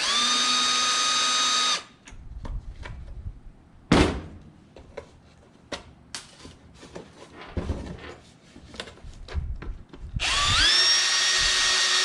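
Cordless drill/driver motor whining at steady speed, then stopping after about two seconds, plausibly backing screws out of the ceiling fan housing. Then come scattered clicks and knocks of parts and screws being handled, with one sharp knock about four seconds in. About ten seconds in the drill starts again, its whine rising and then holding steady.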